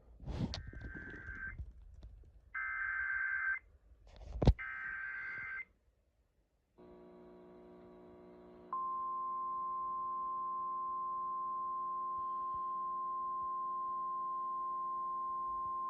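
Emergency Alert System data header: three short bursts of rapid warbling digital tones, each about a second long, with a sharp click in the first and a louder one in the third. After a brief dead gap a low buzzing hum comes up, and about 9 seconds in the NOAA Weather Radio 1050 Hz warning alarm tone starts, one loud steady tone that holds on: the signal that a weather warning is about to be read.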